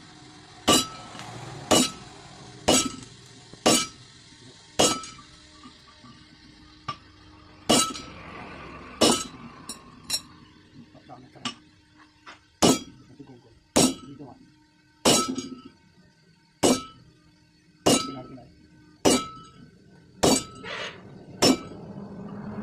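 Sledgehammer blows on glowing iron held on an anvil, hand-forging a trolley hitch rod bush: about one heavy strike a second, each with a short metallic ring. The blows pause for a couple of seconds about a third of the way in, and a few lighter taps fall between them.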